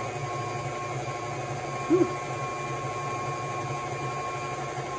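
Electric stand mixer running steadily at medium speed, creaming butter, sugar and eggs, its motor giving a steady hum with a faint whine. About two seconds in there is a brief, louder pitched sound that rises and falls.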